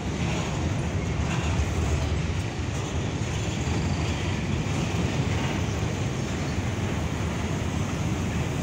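Babaranjang coal train's open-top gondola wagons rolling past on the rails: a steady, even rumble of steel wheels on track.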